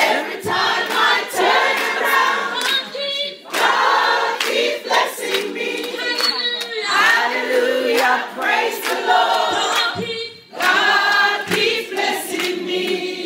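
A group of women singing together, choir-style, without instrumental backing.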